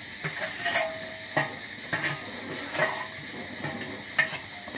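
Metal spatula scraping and knocking grated coconut off a stainless steel plate into a kadai: a string of about seven uneven metallic clinks, some ringing briefly.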